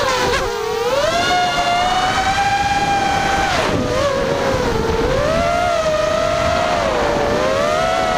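Four FPVModel 2204 brushless motors spinning Dragonfly 4045 bullnose props on a ZMR180 mini quadcopter, heard from the GoPro mounted on the quad. They make a loud, high whine whose pitch rises and falls with the throttle, dipping briefly a few times as the quad rolls and banks.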